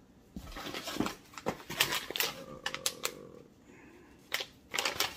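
Packaging rustling and crinkling as a plastic pouch is pulled from a cardboard box and handled, in two spells of irregular crackles with a short lull just past the middle.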